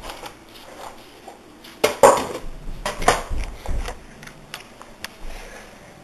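Clattering knocks of hard objects being handled, loudest about two seconds in and again about a second later, with scattered smaller clicks.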